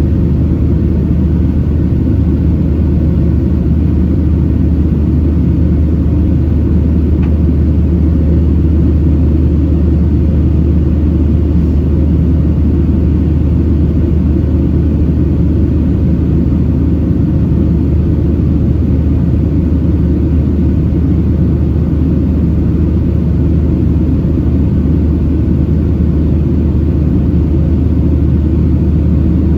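Steady, loud low rumble of a Boeing 737-700's CFM56-7B engines and airflow heard inside the passenger cabin, unchanging throughout.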